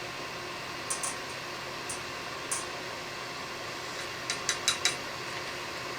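A few light, sharp clicks over a steady low hiss; single clicks early on, then a quick run of four a little after the middle.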